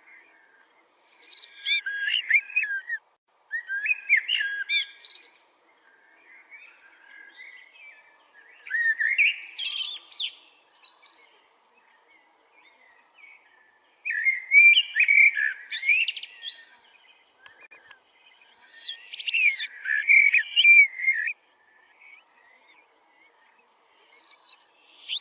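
A bird singing in loud phrases of quick, sweeping, whistled notes, each phrase lasting about two seconds and repeated roughly every few seconds, with softer chirps between the phrases.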